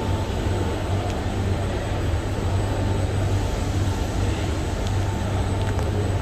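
Steady low hum and rumble of a standing passenger train's on-board equipment running at the platform.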